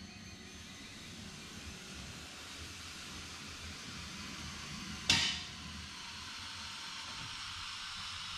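Hydraulic scissor-style car lift lowering a Toyota Prius, a steady hiss slowly growing louder, with one sharp metallic clank about five seconds in.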